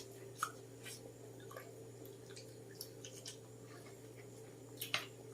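Someone eating buttered mussels: quiet wet mouth sounds and several short sharp clicks, the loudest about five seconds in, over a steady low hum.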